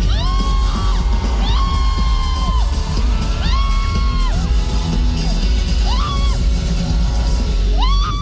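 Live pop music played loud through a concert PA: a heavy, continuous bass beat under sung notes that slide up into each long held note and fall away at its end, with yells and whoops from the crowd.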